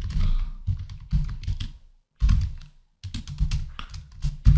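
Typing on a computer keyboard: a run of quick keystrokes with two short pauses midway.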